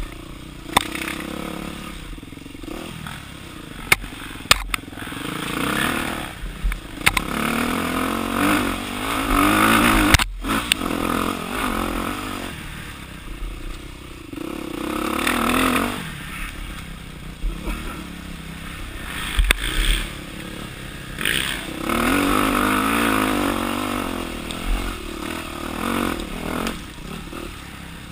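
Dirt bike engine revving up and falling back in repeated surges as the bike is ridden along a rough woods trail, with sharp knocks and clatter scattered throughout.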